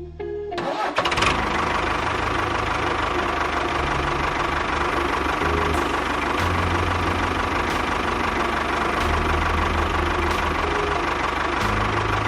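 Tractor engine starting about half a second in, then running steadily with a low, uneven pulsing.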